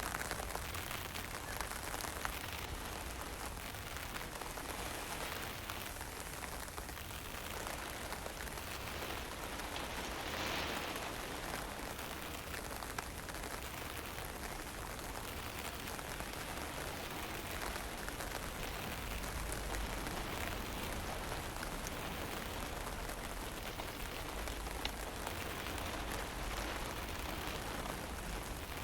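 Fine drizzle and wind: a steady rain hiss with a low wind rumble underneath that swells now and then.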